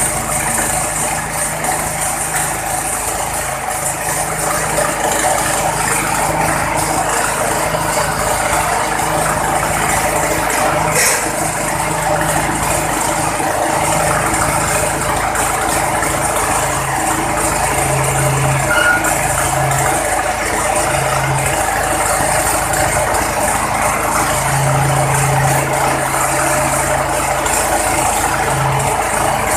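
Tyre changer machine at work on a car wheel: steady mechanical running, with a low motor hum that cuts in and out several times in the second half.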